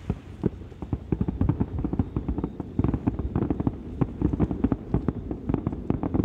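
Fireworks shells bursting in a rapid barrage: many sharp bangs and pops a second, overlapping, starting abruptly.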